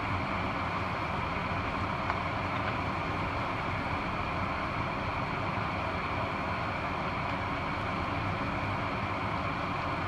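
Cream sauce with bacon and mushrooms simmering in a frying pan on a gas hob: a steady, even bubbling hiss.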